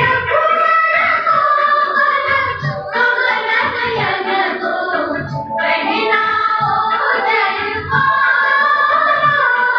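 A song playing loudly: a singing voice over a regular low drum beat that thumps about once every second and a half.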